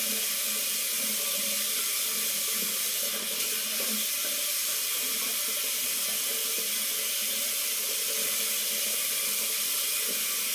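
Water running steadily from a tap, an even rushing noise without a break.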